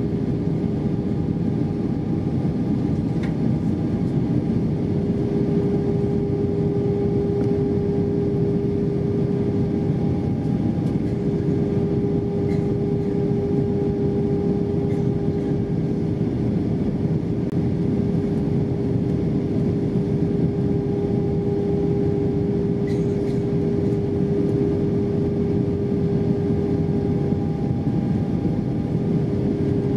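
Cabin noise inside an Airbus A320-232 airliner coming in to land: a steady rush of airflow with the drone of its IAE V2500 engines, and a steady hum over the low rumble.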